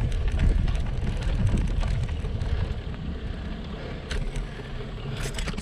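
Road bike rolling, its tyres rumbling over asphalt and then paving stones, with wind noise on the microphone; a few sharp clicks near the end.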